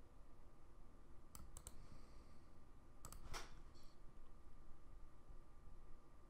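Faint computer mouse clicks: two or three about one and a half seconds in, a quick cluster around three seconds in, and one more at the end, over a faint steady hum.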